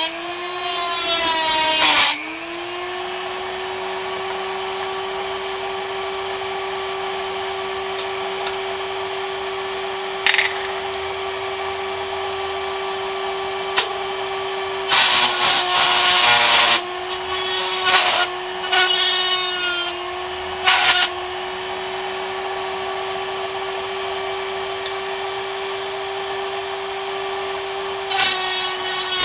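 Dremel rotary tool with a cutoff wheel running with a steady high whine while an aluminium soda can is turned against it. The wheel grinds into the can in louder spells: in the first two seconds, over several seconds past the middle, and again near the end. The motor's pitch sags slightly as the wheel bites.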